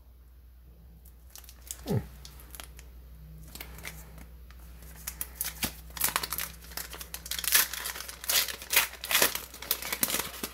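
Plastic booster-pack wrapper being torn open and crinkled by hand, sparse at first and then a dense, loud crackling over the last four seconds or so.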